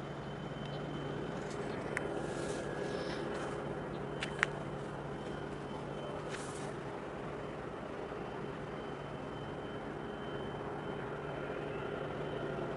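Steady low drone of distant diesel engines, with a faint high whine over it, and a couple of sharp clicks, the loudest about four seconds in.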